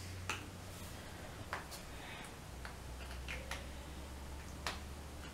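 A few faint, irregular clicks and taps from handling a plastic squeeze bottle of fabric paint, over a low steady hum.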